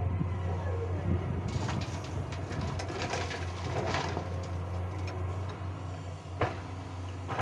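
Excavator's diesel engine running with a steady low drone while a bucketful of soil and clods pours into a dump truck's steel bed, a rushing clatter for about three seconds. A couple of sharp knocks follow near the end.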